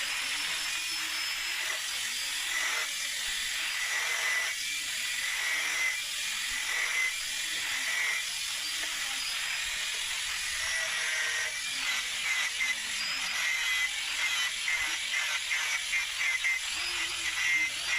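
A power grinder grinding a steel knife blade: a steady high hiss with a thin whine, pulsing with the pressure of the work near the end.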